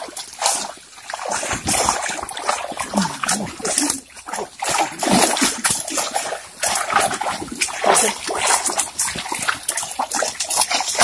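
Irregular splashing and sloshing of muddy water as a fishing net is hauled in by hand, with fish in the catch.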